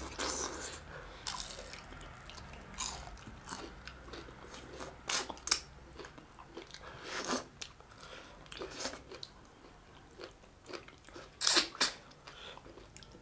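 Close-miked eating sounds: chewing and biting into crisp fried fish, with irregular crunches, a few of them louder, scattered throughout.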